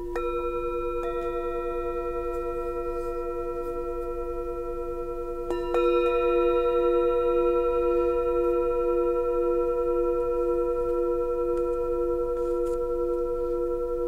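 A set of three full-moon singing bowls (10, 12 and 14 cm) struck with a mallet: a light strike at the start, another about a second in and a harder one about five and a half seconds in, their clear tones ringing on together. The lowest tone wobbles slowly as it sustains.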